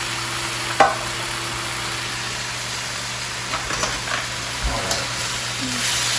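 Pasta, vegetables and sauce sizzling in a hot wok over a gas flame, with a sharp clack about a second in and a few lighter clicks of utensils on the wok later. The sizzle grows louder near the end as the food is tossed with tongs.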